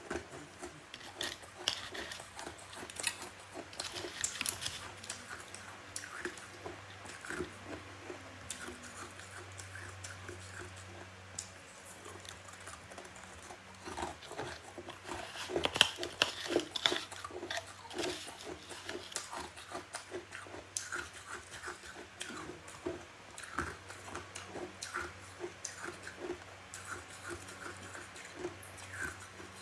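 Close-miked biting and chewing of powdery freezer frost: irregular soft crunches and wet mouth sounds, with a run of louder crunches about halfway through.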